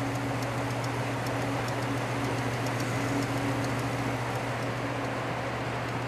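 1933 Frigidaire condensing unit running steadily: the repulsion-induction motor and compressor give an even low hum, with faint scattered ticks over it.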